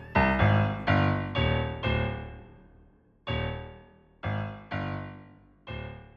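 Keyboard chords struck one after another, each left to ring and fade, with no drums or vocals. There is a short lull near the middle.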